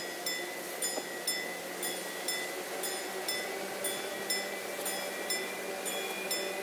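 Level-crossing warning bell ringing: short, evenly spaced metallic dings, about two a second.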